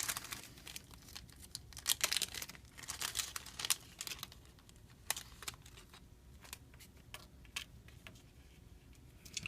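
Light clicks, ticks and crinkling from handling small phone parts and their plastic packaging, with a cluster of clicks in the first few seconds and scattered taps after that.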